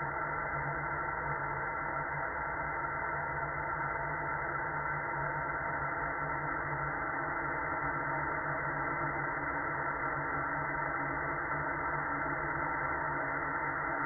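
Steady, muffled white noise from an experimental electronic track, with faint steady tones humming through it.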